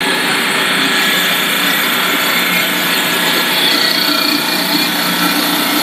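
Corn puff snack extruder production line running: a loud, steady mechanical whir with several constant tones, unchanging throughout.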